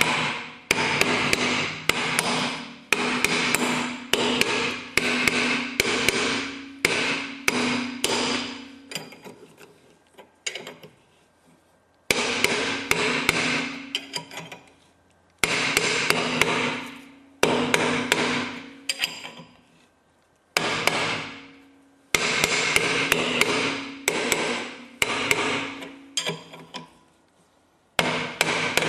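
Hammer blows on a hub puller fitted to a Peugeot 206 rear hub, used to help the tight hub off its stub axle. Each strike rings like metal. The blows come in runs of about two a second, with a few short pauses between runs.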